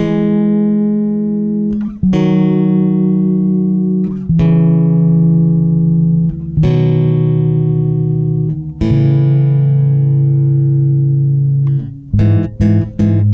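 Background music of slow sustained chords, a new chord about every two seconds, with a few quick short chords near the end.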